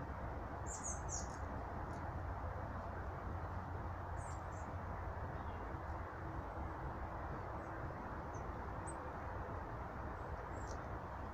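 Small birds at a feeder giving short, very high chirps, a cluster about a second in and a few single ones later, over a steady rushing background noise.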